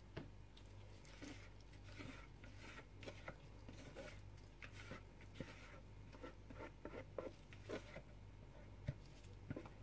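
Faint scrapes and light taps of a spatula against a mixing jug, scraping the last of the soap batter into a loaf mould, over a low steady hum.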